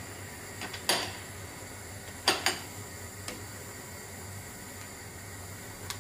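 Kitchen tongs knocking against a stainless steel saucepan while stirring noodles in boiling water: a sharp knock about a second in, a quick pair of knocks near the middle, and a few fainter taps, over a steady hiss.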